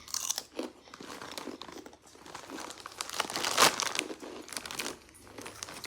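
Crisp bacon-flavoured chips being crunched and chewed, with crinkling of the chip bag: a dense run of irregular crackles and clicks, loudest about three and a half seconds in.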